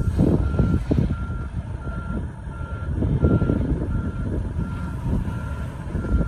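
Backup alarm on a semi tractor-trailer beeping steadily while it reverses, a little faster than one beep a second, with the truck's diesel engine running underneath.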